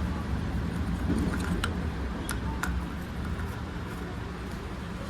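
A few sharp metallic clicks and clinks of hand tools and bolts, about a second and a half in and twice more a little later, over a steady low background rumble.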